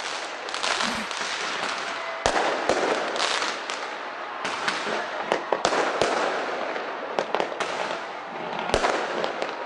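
Fireworks going off: a continuous crackle and hiss of bursting shells, punctuated by sharp bangs, the strongest about two seconds in and again near the end.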